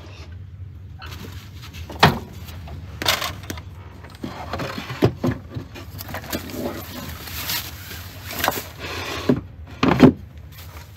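Gear being handled and pulled out of a truck camper's rear storage compartment: a series of knocks and bumps as a wooden board is shifted and items are taken out, with rustling between them. The loudest knock comes near the end.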